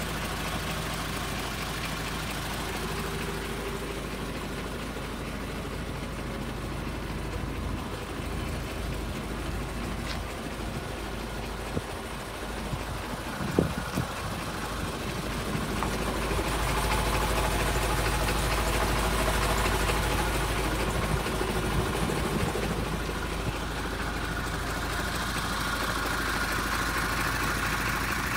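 Isuzu Forward dump truck's diesel engine idling steadily, with one short knock about halfway through and the sound growing a little louder soon after.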